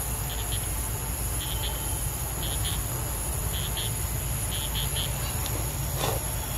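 Forest ambience: a steady high insect drone with short high chirps in pairs about once a second, over a low rumble.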